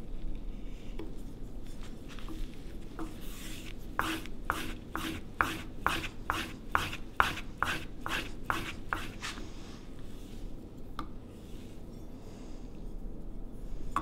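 Steel plane iron being rubbed back and forth on a sharpening plate, a metal-on-abrasive rasp. A quick run of about a dozen strokes, two or three a second, comes between about four and nine seconds in, with softer rubbing around it.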